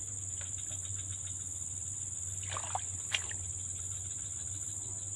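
Steady high-pitched chorus of crickets, with a faint quick ticking in the first couple of seconds and a single sharp click a little after three seconds in.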